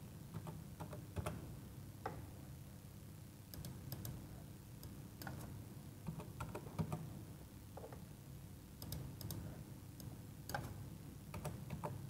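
Faint, irregular clicks of a computer keyboard and mouse as keys are typed and buttons clicked now and then, over a low steady room hum.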